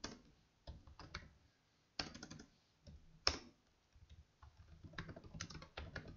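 Typing on a computer keyboard: short runs of keystrokes with pauses between, and one sharper single key tap about three seconds in.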